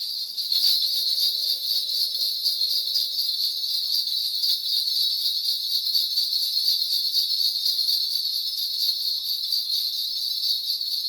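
Korean shaman's cluster of brass ritual bells (bangul) shaken continuously in a fast, even, high jingle. This is the bell-shaking used to call the spirits during a shamanic fortune-telling reading.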